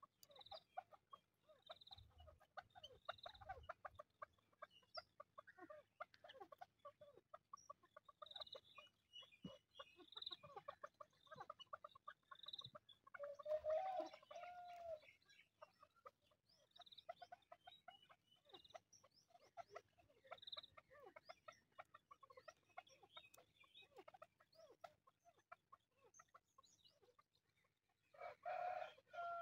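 Chukar partridges calling: long runs of quick, soft clucking notes, with louder calls about fourteen seconds in and again near the end.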